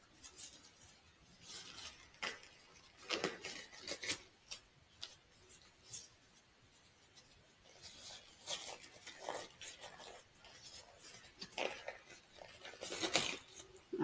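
Sterile gloves being pulled onto the hands: faint, irregular rustling and snapping of the glove material, with crinkling of the paper glove wrapper.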